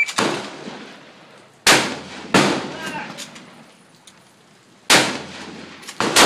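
Several rifle shots, each a sharp report with a short echo, coming in two pairs.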